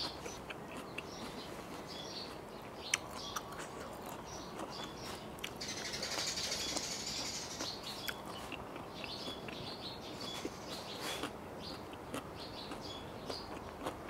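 Small birds chirping repeatedly, with a few sharp clicks of chewing close to the microphone. A soft hiss swells for about a second and a half around the middle.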